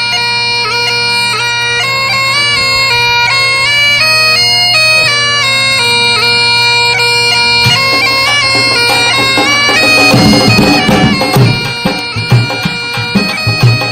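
Bagpipe music: a melody stepping from note to note over a steady drone, with drum beats coming in about ten seconds in.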